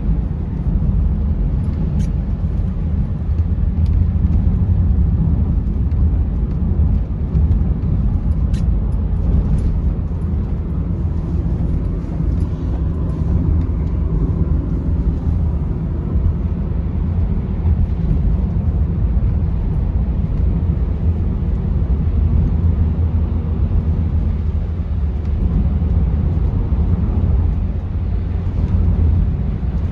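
Steady low road and engine rumble of a car driving, heard from inside the vehicle, with a few light clicks.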